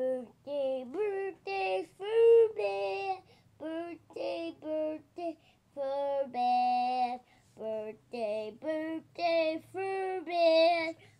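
A young child singing a tune in a high voice, a run of short sung notes in brief phrases with a few longer held notes.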